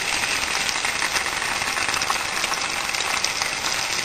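Tomato sauce and cherry tomatoes sizzling in hot olive oil with fried garlic in a pan: a steady hiss with fine crackles.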